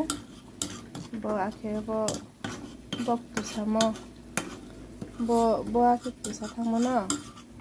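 A steel ladle stirring and scraping inside a steel kadai of lentils in water, knocking against the pan several times. A voice speaks in short phrases over it, loudest about two-thirds of the way through.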